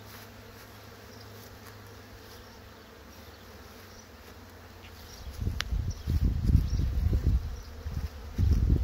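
Honey bees buzzing around the hive entrances, a steady hum. From about five seconds in, loud irregular low rumbling covers it.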